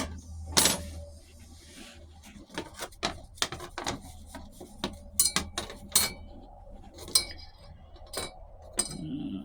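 Metal automatic-transmission parts clinking and knocking together as they are handled and set down on the bench: a string of irregular sharp clinks.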